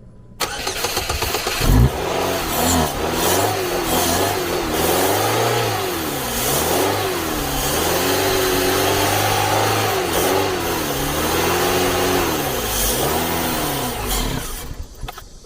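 A car engine starting and being revved, its pitch rising and falling again and again, then shutting off near the end. The mechanic puts the hard starting down to a fuel pump that no longer delivers fuel.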